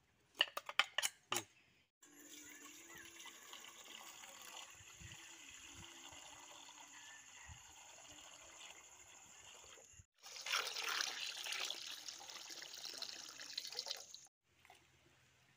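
A knife cutting a green capsicum, about six quick strokes. Then water is poured from one steel bowl into another in a steady stream, and after a short break, water is poured into a steel bowl with a louder splashing.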